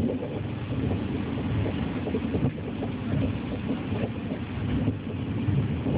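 Steady rumble and running noise of a D-series electric multiple-unit train at speed, heard inside the passenger car.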